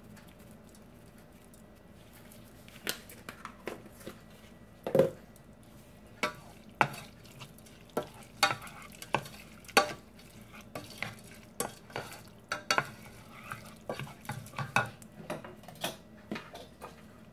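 Wooden spoon stirring minced chicken in a stainless steel pot, clacking and scraping against the pot in irregular knocks that start a few seconds in; the loudest knock comes about five seconds in.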